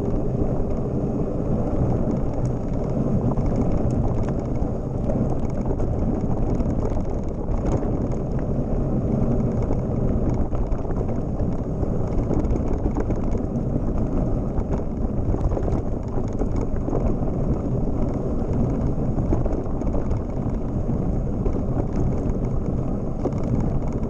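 Mountain bike rolling over a loose gravel dirt road: a steady rumble of knobby tyres on gravel mixed with wind on the microphone, with small clicks and rattles from the bike throughout.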